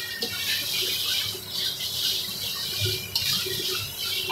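Spice masala frying in oil in a steel kadai, sizzling with a steady hiss while a metal spatula stirs and scrapes it around the pan.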